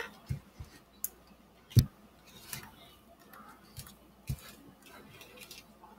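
An epoxy-coated cattle skull being handled and turned: scattered light clicks and knocks, the loudest a sharp knock about two seconds in.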